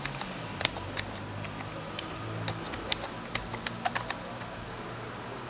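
Keystrokes on a computer keyboard: about a dozen irregular, separate key clicks as a password is typed.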